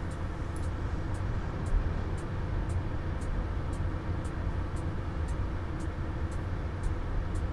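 Steady low whir and hum of a running desktop PC's cooling fans, with faint high ticks about twice a second.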